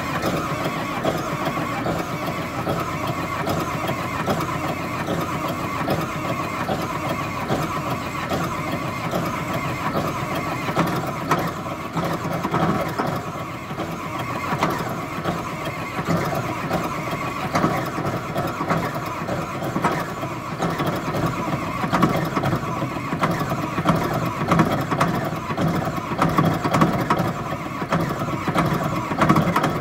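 Diesel engine of a Shantui SD16 bulldozer running just after a hard cold start in frost, with an uneven firing note that gets somewhat louder in the second half.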